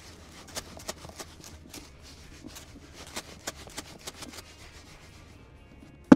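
Ore and assay flux sliding and rattling inside a lidded plastic storage box as it is tilted back and forth to mix them: a run of irregular scratchy ticks. Two sharp knocks right at the end.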